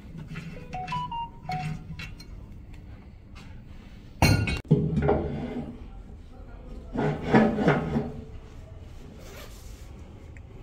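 Heavy cast iron lathe-bed pieces knocking together: a sharp clank about four seconds in, then ringing metallic clatter a few seconds later as they are handled and fitted.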